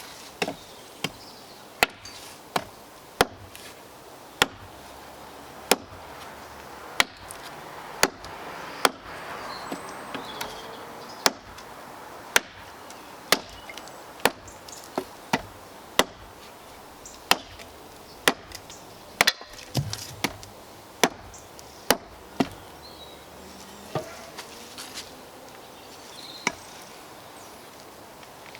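A prototype multi-tool blade, hafted onto a handle as an axe, chopping into wood: a long run of sharp single chops, roughly one a second, which stop near the end.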